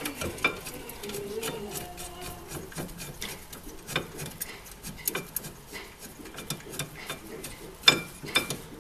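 Metal tools and brake parts clinking and clicking irregularly as they are handled, with a louder clink near the end.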